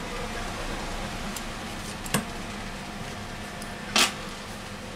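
Two short, sharp clicks about two seconds apart, the second louder, from small parts and tools being handled while a smartphone is reassembled, over a steady background hum.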